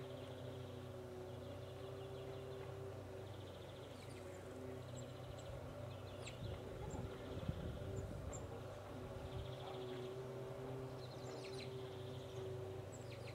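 Faint rural ambience: an insect buzzing in short trills every couple of seconds, scattered brief high bird chirps, and a steady low hum, with a low rumble swelling up in the middle.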